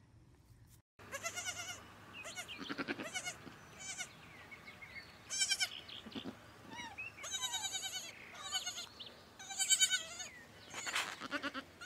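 Goat kid bleating over and over, with about ten high, quavering calls in quick succession, beginning about a second in.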